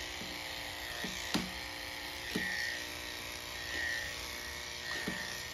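Wahl electric pet clipper with a #10 blade running steadily as it is scooped through the hair between a dog's paw pads, its higher whine swelling briefly about three times.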